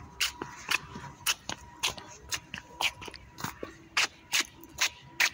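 Footsteps and phone-handling noise from walking with a phone held close: a steady run of short scuffs and knocks, about two to three a second.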